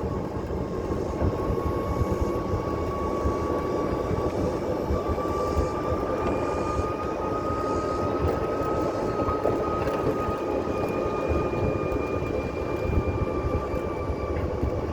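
Golf cart driving: a steady high whine from its drivetrain that rises a little in pitch midway and eases back, over constant rumbling wind and tyre noise.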